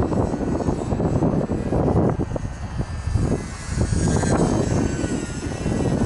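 Wind buffeting the microphone in gusts, with the faint, high whine of the UMX Sbach 342's small electric motor and propeller rising and falling in pitch as the throttle changes.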